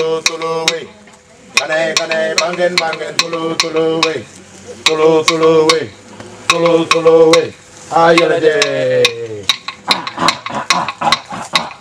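A man sings a traditional Gamilaraay ceremonial song in long held phrases, accompanied by clapsticks struck steadily about four times a second. Near the end the voice slides down and stops, and the clapsticks break into a fast, uneven rattle.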